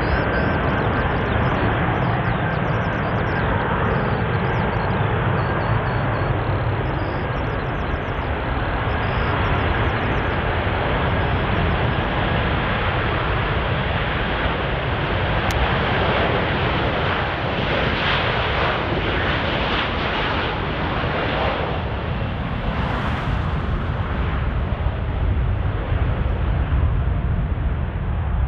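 Jet airliner engines making a loud, steady rushing noise as the aircraft moves along or near the runway, swelling a little about two-thirds of the way through.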